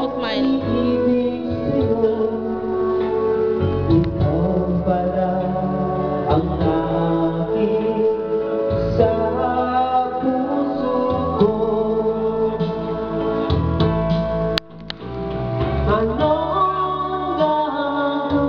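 Karaoke: a man singing a Tagalog song into a microphone over a karaoke backing track, with held notes. The sound cuts out for a moment about three-quarters of the way through.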